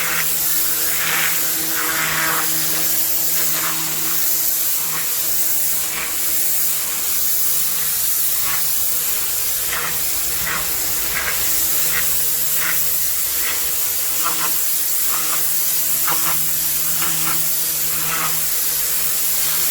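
Kärcher K7 pressure washer spraying, its high-pressure jet hissing steadily against the paving over the steady hum of the pump, with the spray sound swelling in short surges every second or so.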